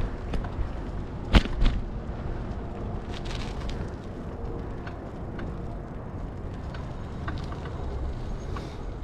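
Riding noise from a bicycle: a steady low rumble of wind on the microphone and tyres on the road, broken by two sharp knocks close together about a second and a half in, with a few lighter clicks later.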